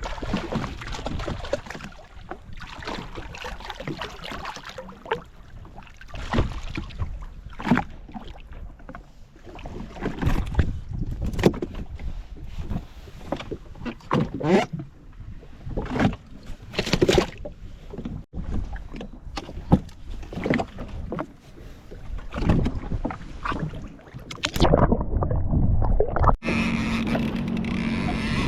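Wind and water noise on a small boat, with irregular splashes and knocks. Near the end, after an abrupt break, a steady low drone takes over.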